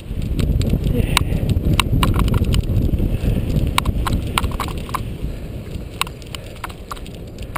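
Cyclocross bike rolling fast over a bumpy dirt track: a heavy low rumble of wind and rough ground on the bike-mounted mic, easing off after about five seconds, with irregular sharp rattling clicks as the bike jolts over the bumps.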